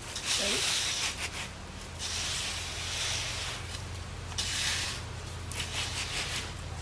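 Screed board scraped back and forth across wet concrete in several long, rasping strokes, levelling a freshly poured sidewalk slab. A steady low hum runs underneath.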